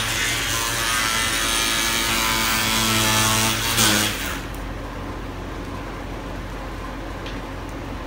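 Ridgid oscillating multi-tool with a scraper blade running, scraping peeling enamel off painted wood: a steady buzz with a rasping hiss. About four seconds in it drops to a quieter, duller hum.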